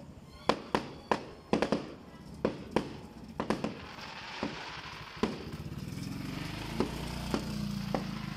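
Aerial fireworks bursting: a quick run of sharp bangs and pops in the first few seconds, thinning to single bangs about a second apart, with a low steady hum coming up in the second half.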